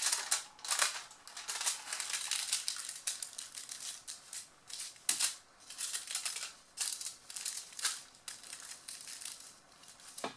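A sheet of aluminum foil crinkling in irregular crackles as it is folded over and creased flat by hand.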